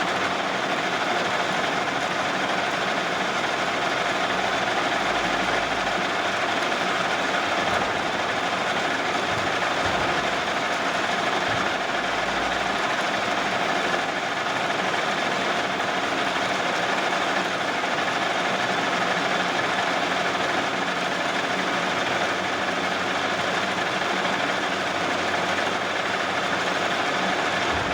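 Metal-turning lathe running steadily, a continuous even mechanical noise with no breaks.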